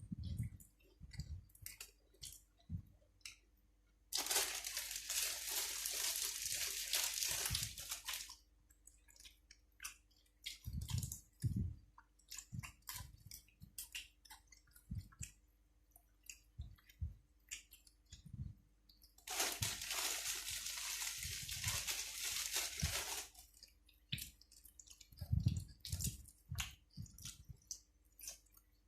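Close-up chewing and crunching of food such as raw cabbage and long beans, many short crisp crunches. Twice it is interrupted by about four seconds of steady hissing noise, the loudest sound here.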